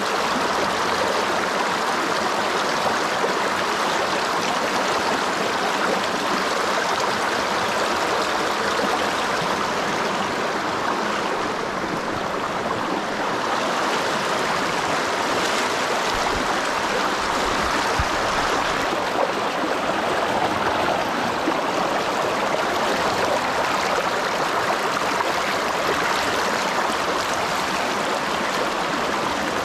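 Fast river current rushing over boulders and through pocket water, a steady, even rushing sound close to the microphone.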